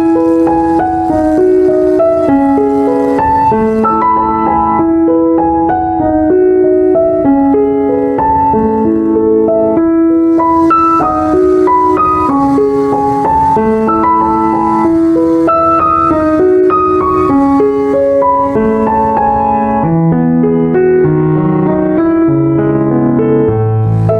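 Background music: a gentle piano or electric-piano melody of single held notes, with bass notes stepping downward near the end.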